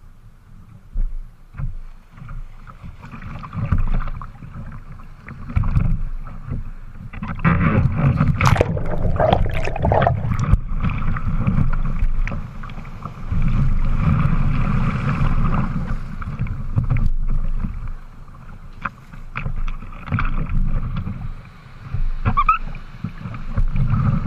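Sea water rushing and splashing around a kayak as it is paddled and surfed through breaking waves, with scattered paddle splashes. The rush of water grows louder for several seconds in the middle, when the kayak is carried in the whitewater of a breaking wave.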